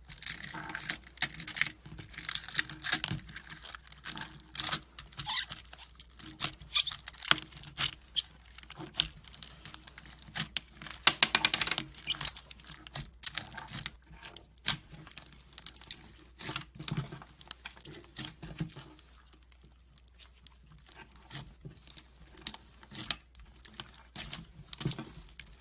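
Slime being squeezed and stretched by hand, giving a dense run of sticky crackles and small popping clicks. It quiets for a couple of seconds about three quarters of the way through, then picks up again.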